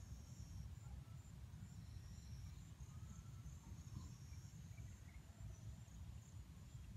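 Near silence with faint high-pitched insect trills coming and going, over a low steady rumble.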